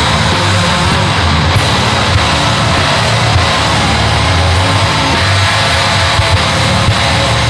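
Loud, heavily distorted industrial noise music: a dense wall of distortion with held low bass notes shifting underneath.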